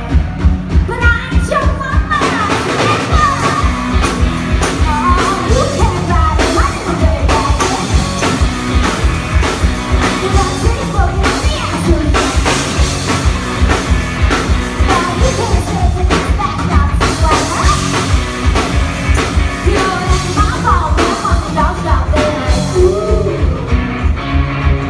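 A band playing a rock song with a steady, driving beat, with singing over it.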